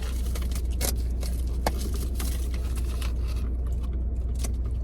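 Plastic blind-bag packaging crinkling and crackling as it is handled and opened, with sharp crackles now and then over a steady low rumble.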